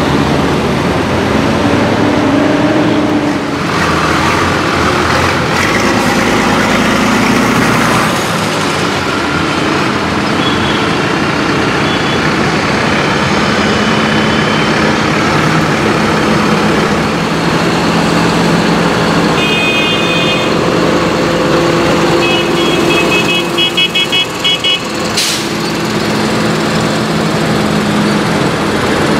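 Diesel engines of a column of modern farm tractors running as they drive past one after another, the engine note shifting as each machine goes by. Short high beeps sound about two-thirds of the way through, then a quick run of them.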